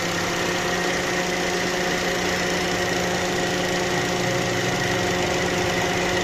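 Car engine idling steadily, with an even, unchanging hum.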